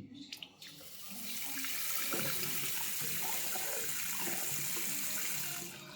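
Water running from a basin tap into the sink, the tap fitted with a new quarter-turn ceramic gland. A few clicks at the start, then the flow builds about a second in, runs steadily and stops just before the end.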